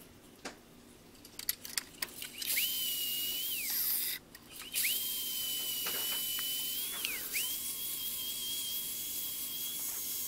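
Angle grinder with a flap disc grinding the steel head of a ball peen hammer down to bare metal, sped up: a high whine that cuts in three times, falling away as the grinder stops after each. Light clicks and knocks fill the first second and a half, before the whine begins.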